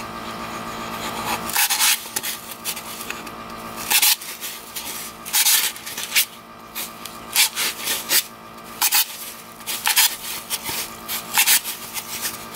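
A thin wooden skewer pushed and twisted through the bottom of a white foam cup to punch drainage holes: a string of short, irregular scraping squeaks, one every second or two.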